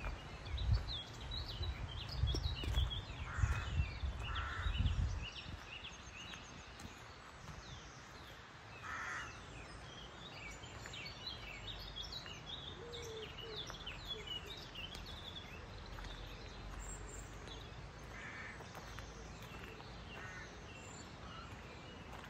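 Spring birdsong: many small birds chirping all through, with a few crows cawing now and then. Low rumbling over the first five seconds.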